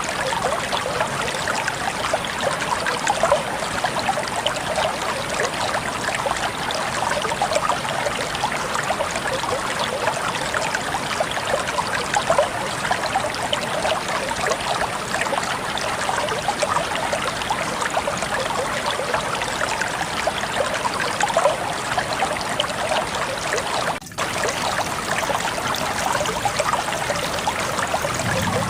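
Waterfall: water falling and splashing in a steady, even rush with fine crackling splashes. The sound drops out for a moment about three quarters of the way through, then carries on unchanged.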